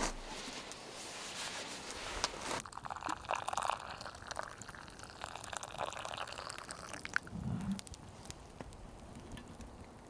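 Rustling and handling of a synthetic sleeping bag, with many small clicks and crackles from the fabric and its drawstring cord.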